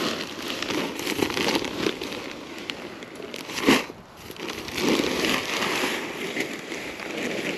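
A plastic bag of composted cow manure crinkling and rustling as it is tipped and emptied, the manure pouring and sliding out, with one louder burst of rustling about halfway through.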